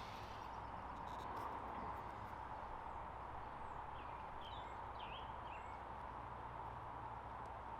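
Steady outdoor background noise with a cluster of short, high bird chirps about four to five seconds in.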